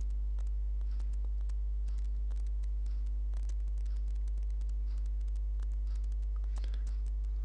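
Steady electrical mains hum with a ladder of higher overtones, and faint, irregular light clicks of typing scattered over it.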